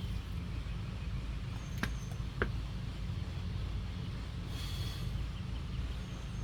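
A man breathing hard during step-out burpees: one short hissing breath about halfway through. Two sharp taps come about two seconds in, over a steady low rumble.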